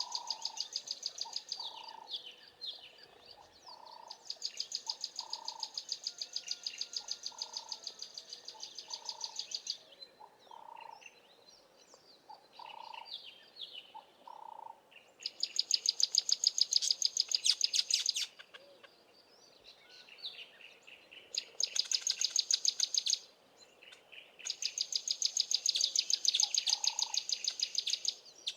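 Birds calling in the bush: a rapid, high, even pulsing trill comes in bouts of a few seconds that stop and start again, with a run of short low notes repeated in the first half and scattered chirps in between.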